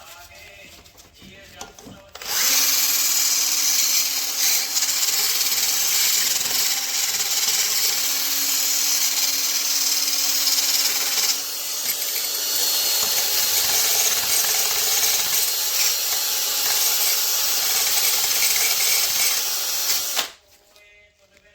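Power drill running steadily with a harsh scrubbing hiss for about eighteen seconds, briefly easing about halfway through, then stopping abruptly. It is cleaning the old, burnt-out wastegate gasket off the metal mating surface.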